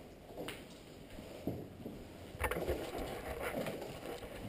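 Footsteps crunching and scuffing on a concrete floor covered in debris, with the clicks and rattle of carried gear, in uneven steps that are busiest about halfway through.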